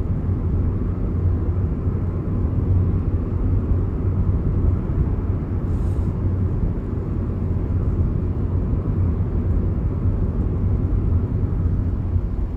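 Steady low rumble of road and engine noise heard inside a car's cabin as it drives along at an even speed.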